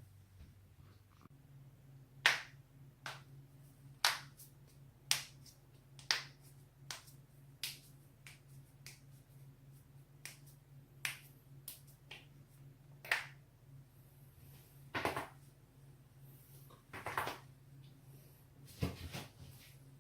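Neck and back joints cracking: about a dozen sharp single pops, roughly one a second, then three longer crackling runs of several pops near the end. A low steady hum runs underneath.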